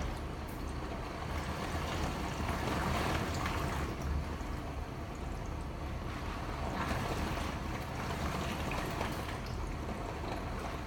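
Hurricane-force wind and driving rain blowing steadily, with stronger gusts swelling about a quarter of the way in and again past the middle.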